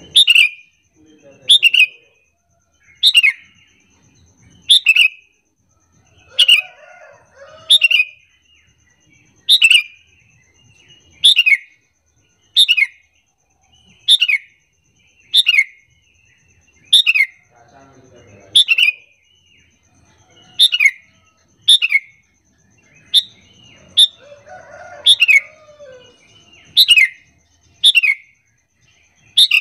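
Sooty-headed bulbul (kutilang) lure call: a loud, short call repeated about every second and a half, each one falling in pitch. Softer, lower chatter comes in between now and then.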